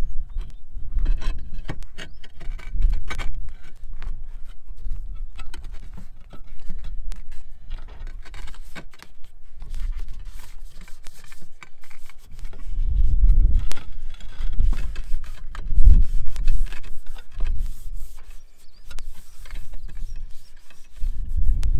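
Clay roof tiles, a metal roof hook and flashing being handled by hand: scattered clinks, knocks and rubbing scrapes. A deep rumble swells several times, loudest about two-thirds of the way in.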